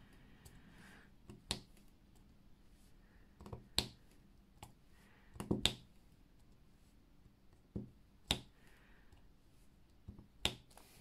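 Sharp, irregular clicks and taps as a diamond-painting drill pen with a multi-placer tip picks up resin drills from the tray and presses them onto the canvas, about one every second or two.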